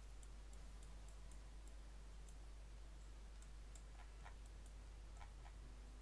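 Near silence: a few faint computer mouse clicks over a steady low hum.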